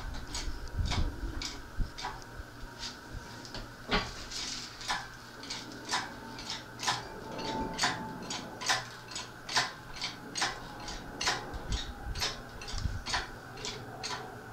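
Hand-pumped hydraulic engine hoist being jacked up by its lever, raising a load of rocks on a chain: sharp metallic clicks, about two a second, one with each pump stroke.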